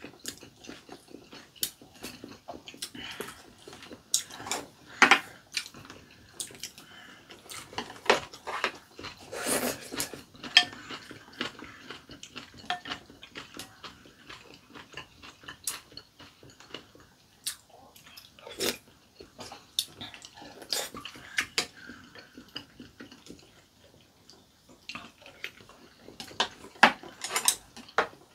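Two people eating hand-torn dough soup: chewing and mouth noises, with chopsticks and spoons clicking irregularly against ceramic bowls.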